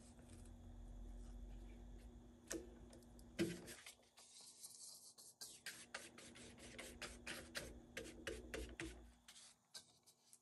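Paintbrush mixing thick paint on a paper-plate palette: a faint run of short, irregular scraping and dabbing strokes that starts a couple of seconds in.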